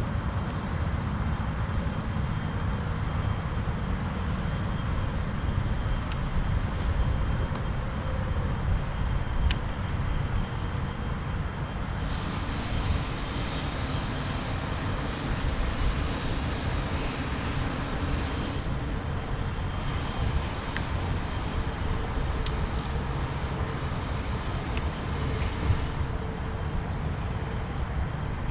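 Wind rumbling on the camera microphone, a steady low rush with a few faint clicks.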